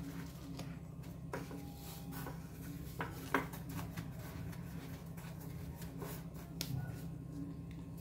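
Faint scraping and rustling of granulated sugar as a hand rolls fried beignets (yeast doughnuts) in a glass container, with a few light clicks and taps. A steady low hum sits underneath.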